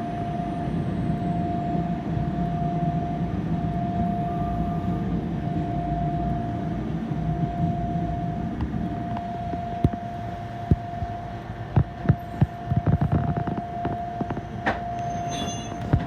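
Fukui Railway 770-type tram running slowly, with a steady rumble and a constant mid-pitched tone. From about two-thirds of the way in, irregular sharp clicks and knocks sound over a quieter rumble.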